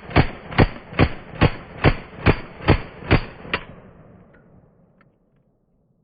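Group Industries Uzi submachine gun in 9×19mm firing a steady string of nine single shots, a little over two a second. The shots stop after about three and a half seconds, and the echo fades out over the next second and a half.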